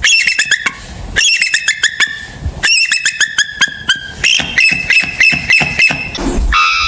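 Bird calling in four rapid runs of short, sharp, pitched notes, each run lasting about a second. Near the end a different, noisier sound takes over.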